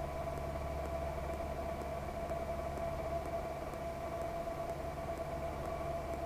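A 1946 Ercoupe 415-C's piston engine and propeller running at a steady pitch, a constant hum with a few fixed tones over a low rumble.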